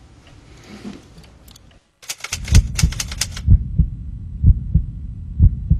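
Heartbeat sound effect: a loud double thump about once a second, starting about two seconds in. Over its first second runs a quick string of sharp ticks, like typewriter keys.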